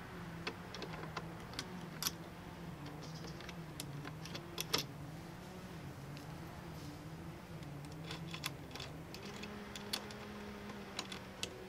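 Irregular small clicks and taps of plastic and metal fastening hardware being handled and fitted by hand under a kayak's stern mounting bracket, over a low steady hum that wavers slightly in pitch.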